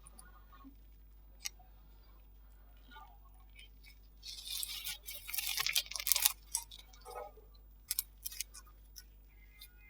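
Slime being pressed and worked by hand: a dense burst of crackling and popping about four seconds in, lasting around two seconds, then a few scattered sharp pops.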